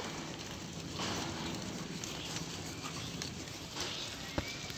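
A flock of sheep and goats walking along a paved road, many hooves pattering and clicking steadily on the hard surface. There is a single sharp knock near the end.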